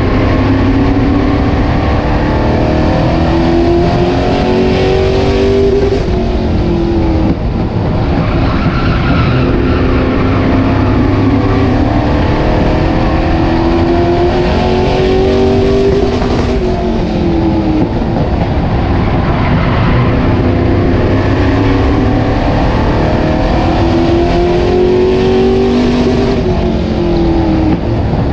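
Super stock race car's V8 engine at racing speed, heard from inside the cockpit. The engine note climbs steadily as the car accelerates down each straight, then drops sharply as the driver lifts for the corner, three times, with road and wind noise underneath.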